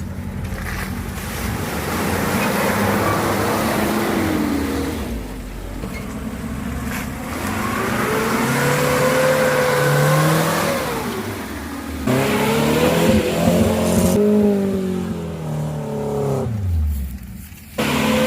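Off-road vehicle's engine revving under load, its pitch rising and falling repeatedly, with sudden breaks about two-thirds of the way through and again near the end.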